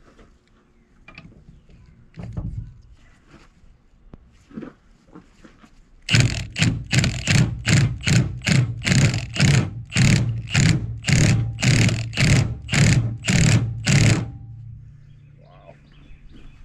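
Cordless impact wrench hammering in a string of short bursts, about two a second, for some eight seconds, on the puller bolt used to pull the stubborn drive gear off a Bendix Tru-Flo 550 air compressor. Faint handling clicks come before it.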